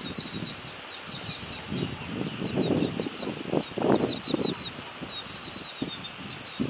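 Small birds chirping in quick runs of short, high, falling notes, over a faint steady high-pitched tone. Irregular low gusts of wind buffet the microphone, loudest about four seconds in.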